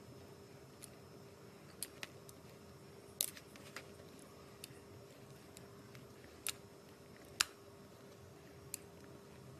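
Small scissors snipping into a bar of soap: about ten short, crisp snips at irregular intervals, the loudest around three and seven seconds in, over a faint steady hum.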